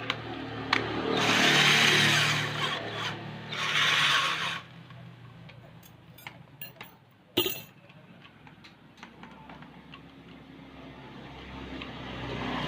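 Electric drill driving a jigsaw adapter, sawing in two loud spells over the drill motor's hum. Then a few clicks and one sharp knock, and the motor hum rises again near the end.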